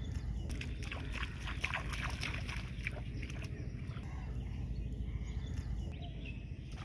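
Water splashing and sloshing as bare feet wade through shallow paddy water, the splashes clustered in the first half, over a steady low rumble.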